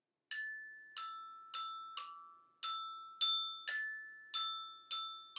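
Toy xylophone with metal bars struck with a mallet, playing a slow melody of single ringing notes, about ten of them, each fading before the next.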